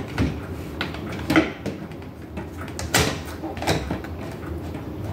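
A door sweep being handled and fitted at the bottom of a door: about four sharp knocks and clacks, the loudest about a second and a half in and again about three seconds in, over a steady low hum.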